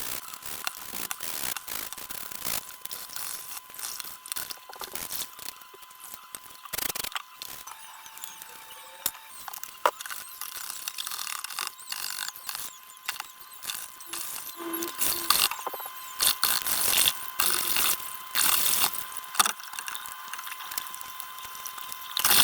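Hand scrubbing and scraping at stuck-on grime in a washing machine: an irregular run of short, rasping strokes.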